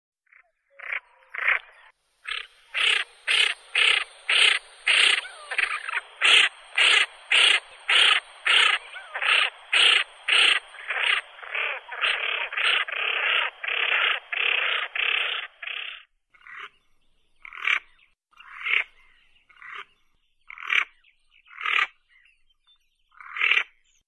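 Common pochard calling: a fast run of short, rasping calls at about two a second for roughly fourteen seconds, then scattered single calls.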